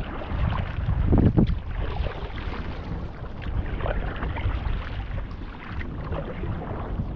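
Stand-up paddleboard paddle strokes splashing and sloshing through the water, with wind rumbling on the microphone. The loudest splashes come about a second in.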